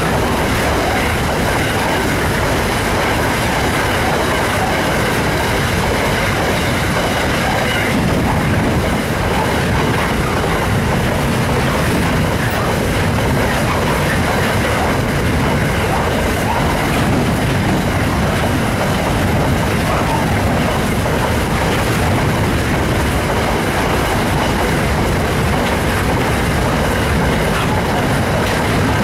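Wagons of an iron ore freight train rolling past at close range: a steady, loud, continuous noise of steel wheels running on the rails.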